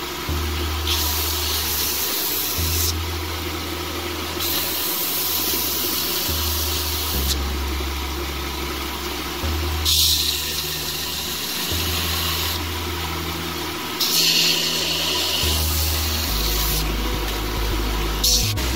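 Belt grinder running with its abrasive belt sanding a wooden knife handle. The sanding hiss comes and goes every second or two over the steady hum of the motor.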